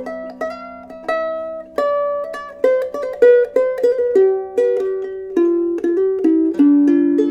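Handmade soprano ukulele with an ancient Sitka spruce top and pernambuco back and sides, played solo in an improvised fingerpicked melody over lower notes left ringing. It is unprocessed, with no effects on the tone.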